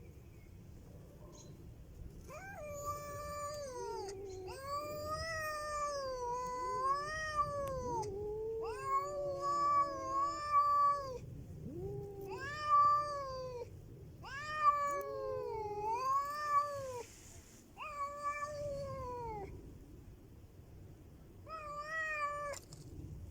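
Domestic cats caterwauling in a standoff: long, wavering yowls that rise and fall in pitch, one after another, with a second, lower voice overlapping in places. A short yowl comes near the end. These are threat yowls of a cat confrontation.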